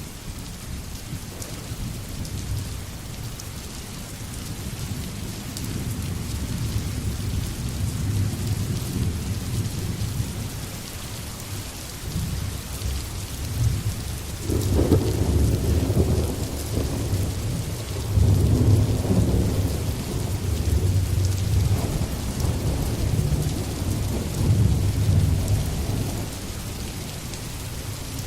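Steady rain with rolling thunder; the thunder swells loudest about halfway through and again a few seconds later.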